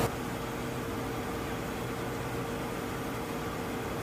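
Steady in-flight drone and rushing air noise inside an aerial refuelling tanker, with a constant low hum, unchanging throughout.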